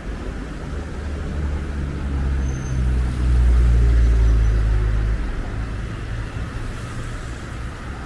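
A road vehicle passing, its low engine sound growing louder from about a second in, loudest around three to five seconds in, then fading, over a steady hiss of traffic.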